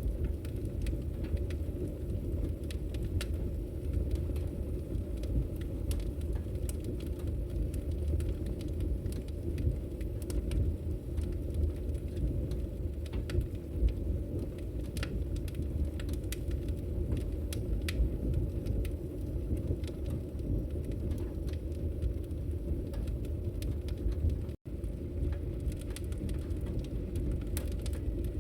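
Wood fire burning in a fireplace: a steady low rumble of flames with frequent sharp crackles and pops. The sound cuts out for a split second once near the end.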